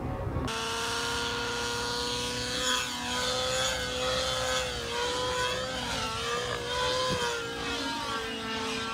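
Remote-control model airplane flying overhead: a steady, high-pitched motor-and-propeller drone that starts suddenly about half a second in, its pitch wavering slightly as the plane moves.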